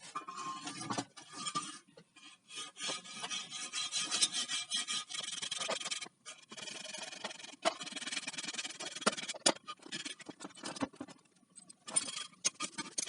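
Assorted tools and hardware being handled and sorted: irregular scraping and rubbing of objects against one another and the floor, with a few sharp knocks.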